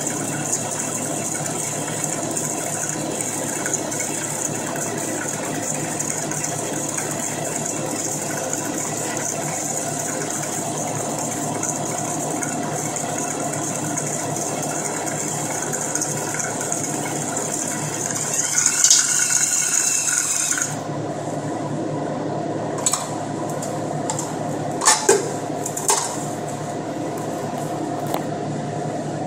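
KitchenAid stand mixer's motor running steadily on low speed, the beater churning a dry-ice ice cream base in the steel bowl. About two-thirds of the way in there is a louder hiss for a couple of seconds, and a few sharp clicks follow near the end.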